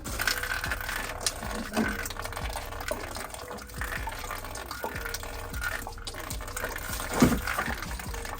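Water rushing and splashing out of a water heater tank through the opening where the leaking valve has come off, a steady gush that starts suddenly, with a few knocks.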